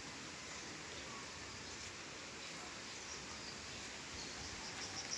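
Steady outdoor background noise, with a few faint high bird chirps near the end.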